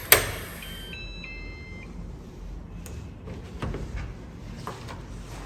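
Electronic keypad door lock opening: a sharp clunk of the bolt, then a short electronic jingle of a few stepped notes lasting about a second, followed by a few soft knocks as the door is handled.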